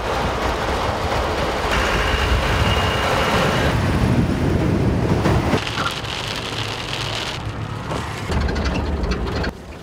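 Heavy rain with the rumble of a vehicle driving, in edited sections that change abruptly about five and a half and seven and a half seconds in, and drop in level just before the end.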